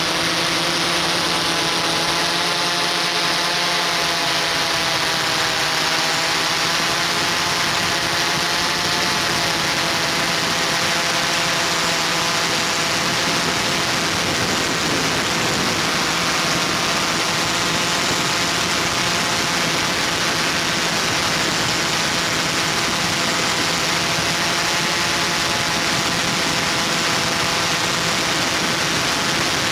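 Multirotor camera drone's motors and propellers running: a steady whirring hum of several pitches that drift slightly up and down together, over an even hiss.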